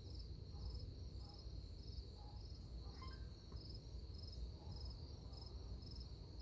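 Crickets calling: a steady high trill with a short pulsed chirp repeating about every half second, faint over a low rumble.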